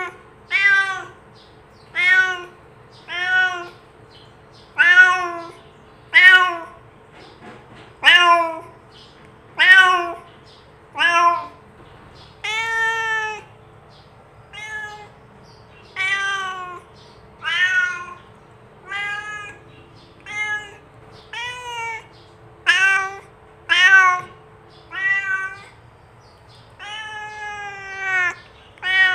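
Domestic cat meowing over and over, more than twenty separate meows about a second or so apart, two of them drawn out longer. These are real cat calls of the kind used to call other cats over.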